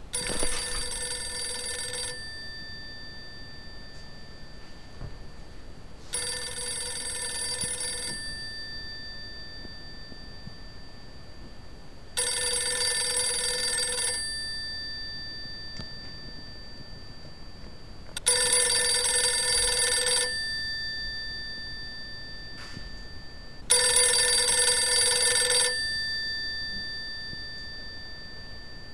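Old rotary-dial telephone's bell ringing five times, each ring lasting about two seconds, with about six seconds from one ring to the next. Each ring ends in a short metallic ring-out.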